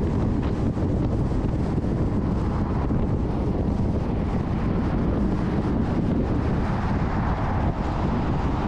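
Steady road and wind noise of a moving car.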